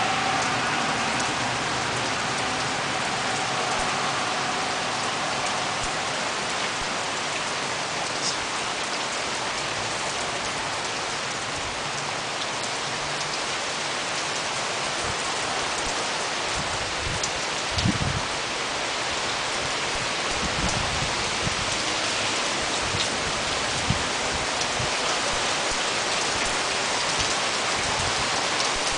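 Heavy rain falling steadily, with a few low thumps in the middle.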